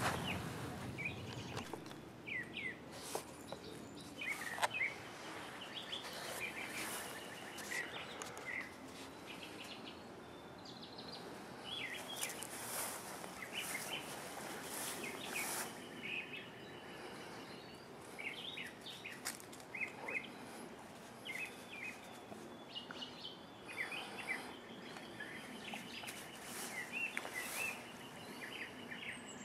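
Small songbirds chirping and calling, short chirps and a few brief trills scattered throughout, over a faint steady outdoor hiss with occasional soft clicks.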